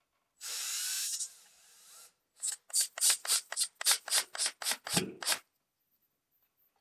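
Cordless drill driving a screw through a metal curtain-rod bracket into the wall: one steady run of about a second, then about a dozen short bursts, roughly four a second, as the screw is snugged down.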